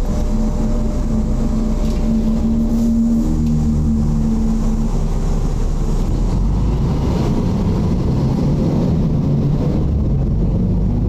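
Diesel engine of a Mercedes-Benz O-500UDA articulated bus running. Its pitch holds steady for about the first five seconds, then wavers and climbs again near the end as engine speed changes.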